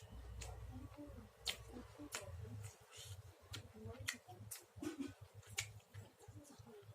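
Faint chewing of chicken close to the microphone: irregular sharp mouth clicks and smacks.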